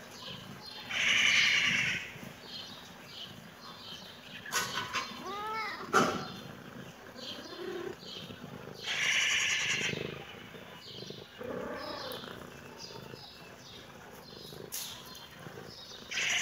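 Domestic cat meowing a few times, short rising-and-falling meows, with three louder harsh, noisy sounds about a second in, at about nine seconds and near the end. Faint short chirps run throughout in the background.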